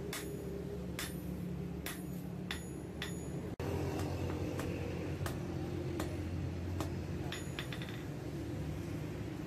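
Hand hammer striking a red-hot file blade on a steel anvil, forging it into a knife: ringing metal blows about once or twice a second, with a quick run of lighter taps about three quarters of the way through. A steady low hum runs underneath.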